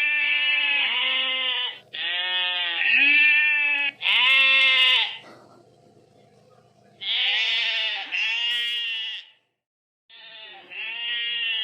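Sheep bleating: a series of about six long bleats, each a second or two long, with a pause of a couple of seconds in the middle.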